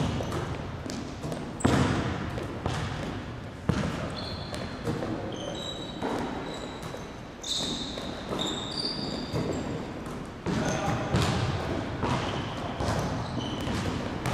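Basketball shooting drill in a gym: the ball hits the rim and bounces on the hardwood floor every second or two, each thud echoing. Between the thuds come short high-pitched sneaker squeaks.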